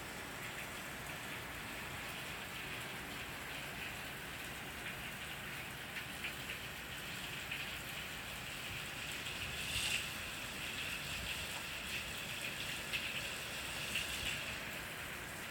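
Rain falling steadily on a deck and on the leaves of the trees: an even hiss of rain with individual drops ticking through it, and a few louder drops in the second half.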